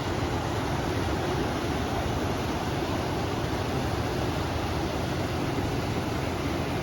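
Steady rush of flowing river water mixed with wind, an even noise that does not change.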